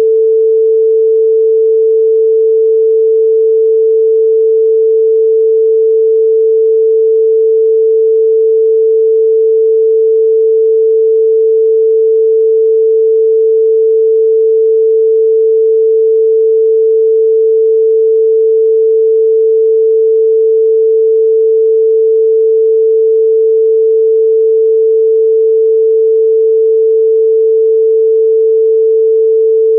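A synthesized pure sine tone used as a Rife frequency, held at one unchanging mid pitch with nothing else heard.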